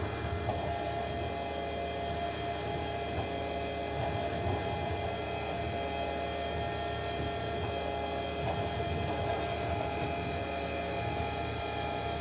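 A motor running steadily: a machine hum made of several held tones over a rushing noise.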